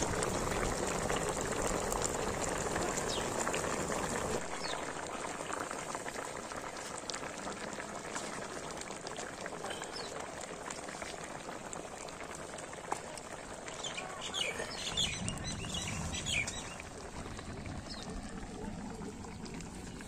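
Fish and broccoli curry boiling in a kadai over a wood fire: a steady bubbling, louder for the first four seconds and then easing a little.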